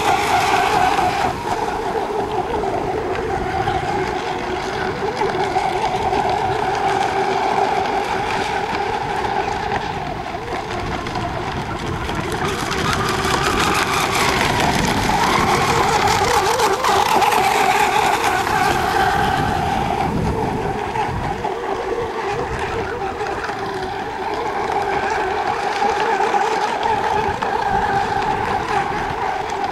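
Radio-controlled racing boat engines running at high speed on the water: a steady, high-pitched drone that swells and fades a little as the boats pass.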